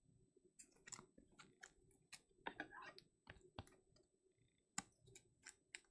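Trading cards and plastic card holders being handled on a table: an irregular scatter of quick clicks and short scrapes, about a dozen in all, the loudest a few seconds in.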